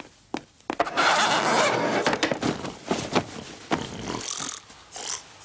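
A man's loud, rough grunting and snorting, pig-like enough to pass for a wild boar over a telephone line, loudest about a second in, with a few short knocks at the start.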